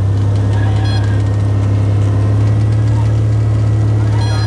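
Cessna 182's piston engine and propeller droning steadily, heard inside the cabin during a landing approach.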